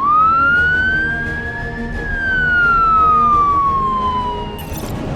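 A siren wailing once: its pitch rises for about two seconds, then falls slowly and fades near the end, with faint crackling behind it.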